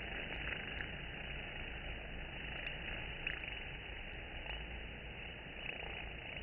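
Honey bees droning at a hive entrance: a steady, dense hum with a few faint ticks.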